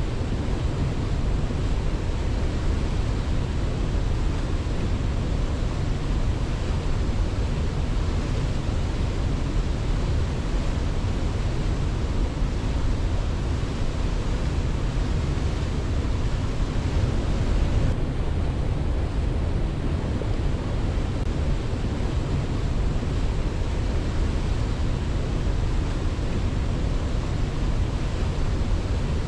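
Waterfall rushing steadily, an even, unbroken wash of falling water with no swells or pauses.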